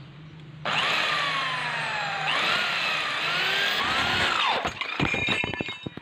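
Electric drill boring into steel angle iron with a twist bit. The bit cutting the metal gives a loud high squeal that wavers up and down in pitch, starting under a second in, and gives way near the end to a spell of irregular rattling clicks.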